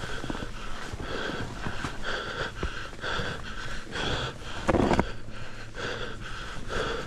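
A skier breathing hard in short, rhythmic breaths about twice a second, over skis scraping and crunching through thin snow. There is a louder scrape or knock about four and a half seconds in.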